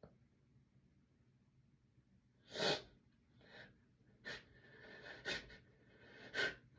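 A person's gasping, catching breaths in the build-up to a sneeze. After a quiet stretch there is a sharp inhale about two and a half seconds in, followed by four shorter hitching breaths.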